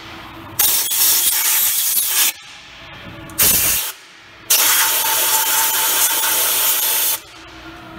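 Compressed-air blow gun blasting into the open differential housing of a 2007 Ford Crown Victoria, in three hissing bursts: a long one starting about half a second in, a short one at about three and a half seconds, and the longest from about four and a half to seven seconds.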